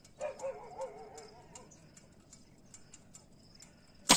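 A single sharp crack of a 5.5 mm (.22) scoped air rifle fired upward at a bird on the wires, just after four seconds in. Before it, a wavering animal call with a quivering pitch lasts about a second and a half.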